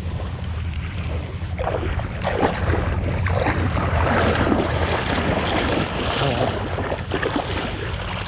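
Water splashing and sloshing, loudest in the middle, over a steady low rumble of wind on the microphone.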